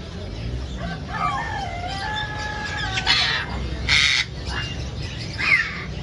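Caged parrots calling: a few whistled, gliding notes, then two loud harsh squawks about a second apart midway, and a short falling chirp near the end.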